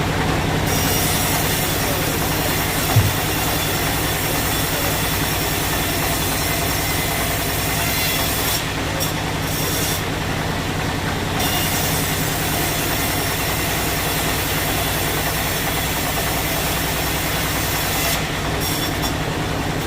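Sawmill machinery running steadily, a large saw working teak, with a single knock about three seconds in.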